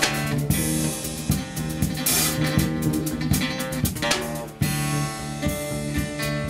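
Acoustic instrumental improvisation: a guitarron plays deep plucked bass notes, with other plucked strings and a drum kit keeping time. A cymbal washes about two seconds in.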